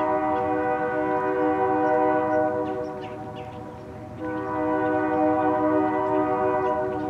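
Freight locomotive's multi-chime air horn sounding two long blasts, with a short break about three and a half seconds in. A low rumble from the approaching train runs underneath.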